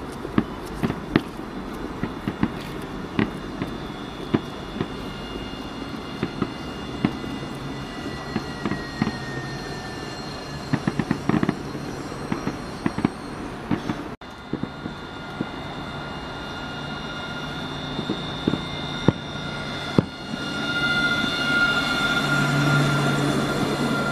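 Nottingham Express Transit tram pulling into a stop, its whine falling in pitch as it slows, over frequent sharp pops and crackles of fireworks. After a cut about 14 seconds in, a tram runs close by with a steady electric whine that grows louder near the end.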